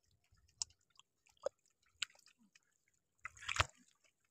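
Wet mud squelching under hands digging and pressing into it: a few scattered wet clicks, then a louder squishy patch about three seconds in.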